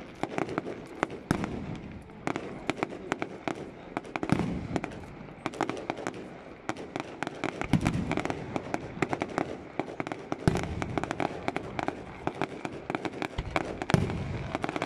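Fireworks display: aerial shells bursting in quick succession, with dense sharp bangs and crackling and several deeper booms spaced a few seconds apart.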